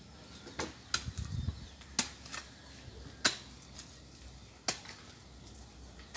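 About six sharp clicks and snaps at uneven intervals, the loudest a little past the middle, with a brief low rumble about a second in.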